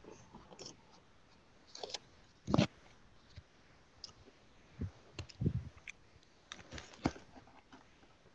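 Scattered short clicks and soft knocks, with a louder thump about two and a half seconds in and another about five and a half seconds in.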